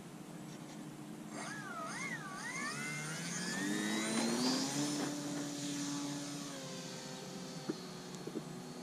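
Electric motor and propeller of a 1-metre foam-board RC biplane spooling up for takeoff: a whine that wavers in pitch at first, then rises steadily as the throttle is advanced and the plane accelerates. It then settles into a steadier, fainter drone as the plane climbs away.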